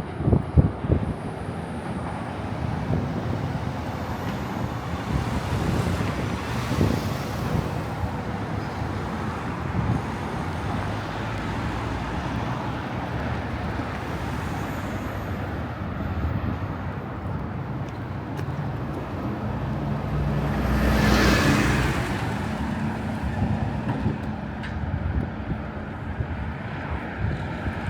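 City street traffic noise, with one vehicle passing close and loud about two-thirds of the way through.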